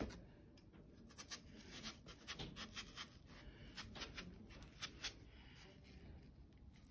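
Knife slicing a watermelon into wedges: faint, scratchy cuts through the rind and flesh, with scattered small crisp clicks.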